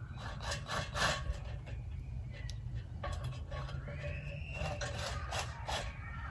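Wood scraping and rubbing with scattered knocks as boards are handled and positioned, over a steady low rumble.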